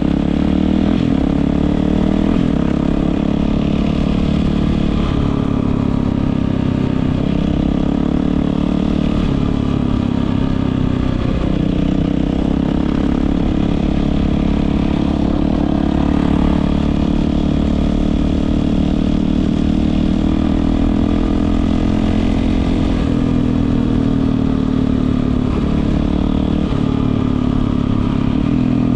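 Yamaha WR450F's single-cylinder four-stroke engine running through an Akrapovič exhaust, a steady loud note with small rises and falls in pitch.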